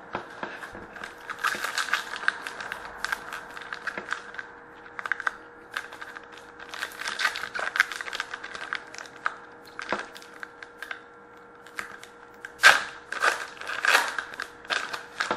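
Hockey trading card pack and cards being handled by hand: the wrapper crinkles and the cards rustle and click against each other in a run of quick crackles, loudest about twelve to fourteen seconds in.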